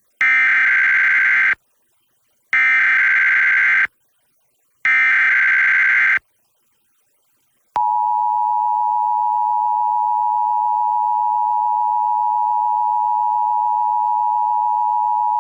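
Emergency Alert System header: three short bursts of buzzy digital data tones (the SAME code), each about a second and a half long with a second's gap between, followed about eight seconds in by the EAS attention signal, a loud steady two-tone alert that is still holding at the end. It is a required monthly test relayed over FM radio.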